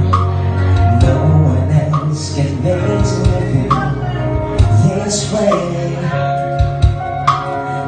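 A man singing into a microphone over amplified music with guitar, bass and a steady drum beat.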